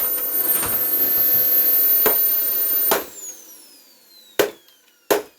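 Fantom Lightning canister vacuum motor running with a high whine and sharp knocks; about three seconds in it is switched off and the whine falls as the motor spins down. Two more loud knocks come in the last couple of seconds.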